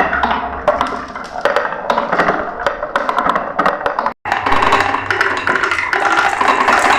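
Glass marbles clattering down a marble run track, a rapid irregular stream of clicks and taps. After a brief dropout about four seconds in, the clatter becomes a denser, steady rattle.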